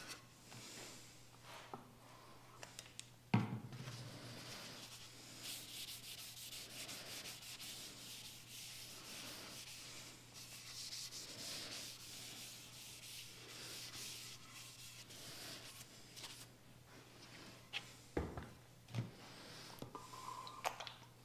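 Cloth rag rubbing oil into a wooden cutting board, faint back-and-forth wiping strokes. A sharp knock about three seconds in and a few more knocks near the end.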